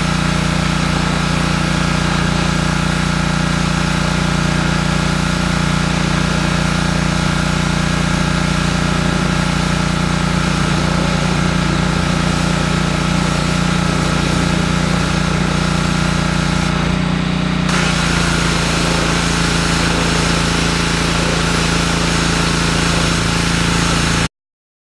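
Small 173cc four-stroke overhead-valve engine of a Simoniz 2700 PSI gas pressure washer running steadily at a constant pitch. About 17 seconds in the sound briefly changes and settles a little lower in pitch, and near the end it cuts off abruptly.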